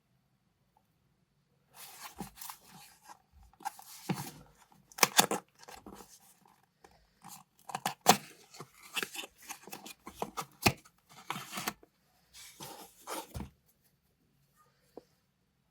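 Unboxing handling noise: the microphone's box and its paper and plastic packing being opened and handled. It comes as irregular rustling and tearing with sharp clicks and knocks, starting about two seconds in and stopping a couple of seconds before the end.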